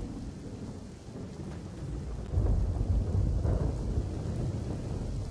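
Rushing water of the Banas river in spate, a steady wash with a heavy low rumble that grows louder about two seconds in.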